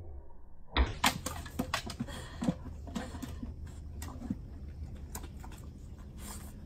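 Irregular light knocks and clicks, with a sharp knock about a second in, as a puppy is set into a cardboard tissue box and shifts about in it.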